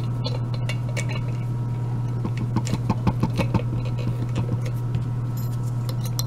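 Small metal clicks and rattles as a euro lock cylinder is set into a lock-picking vise and the vise is tightened, the clicks thickest a little before the middle. A steady low hum runs underneath.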